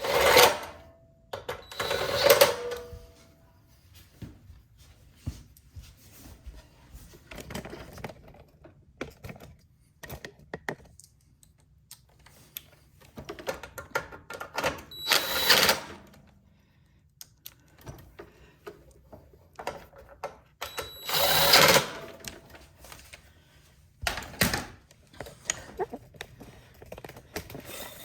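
Cordless drill-driver running bolts back into the snow blower's housing in short bursts of about a second, several times over, with small clicks and clatter of tools and parts between the bursts.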